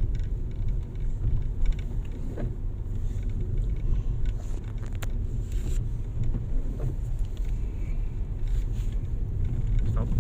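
Steady low rumble of a vehicle on the move, with a few faint clicks.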